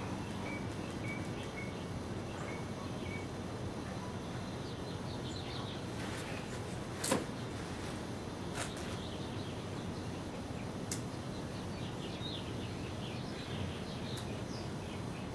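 Steady outdoor background noise with faint bird chirps scattered through it, and a sharp click about seven seconds in.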